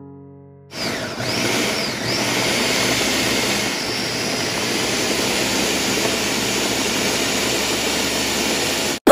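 Countertop blender running at high speed, puréeing a thick sauce of soaked dried chili peppers, tomatoes and garlic. It starts about a second in and cuts off suddenly near the end.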